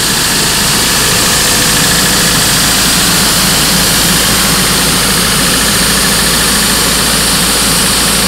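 Diesel engine of an Ingersoll Rand trailer-mounted portable air compressor running steadily, heard close to the open engine bay: a constant loud run with a low hum under a strong hiss.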